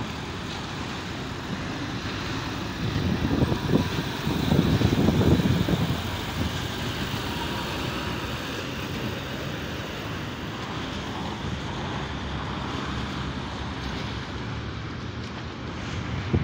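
Busy road traffic noise, with an orange Volvo semi-truck pulling a curtainsider trailer passing close by; its engine and tyre rumble swells loudest about three to six seconds in, then settles back into the steady flow of passing cars.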